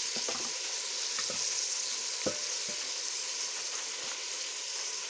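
Small sardines frying in hot cooking oil with chili, a steady sizzle, with a few light knocks of the stirring utensil against the pan, the clearest a little over two seconds in.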